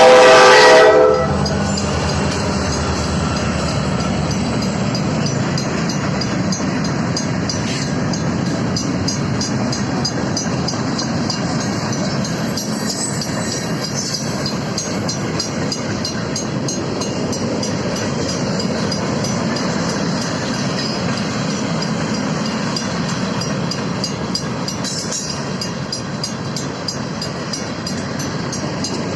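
A freight locomotive's air horn sounds and stops about a second in, then the freight train rolls steadily through the grade crossing with a continuous rumble of wheels on rail, while the crossing signals' mechanical bells keep ringing with quick, even strokes.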